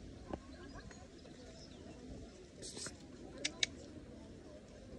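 Town street ambience: a steady low murmur of distant activity, with a short hissing scrape about two and a half seconds in and two sharp clicks in quick succession about a second later.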